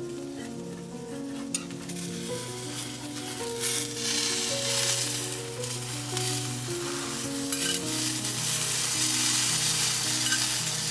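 A bánh xèo crepe of coconut-turmeric rice batter sizzling in hot oil in a skillet, growing louder after about two seconds, with one sharp click about a second and a half in. Background music with held, stepping notes plays underneath.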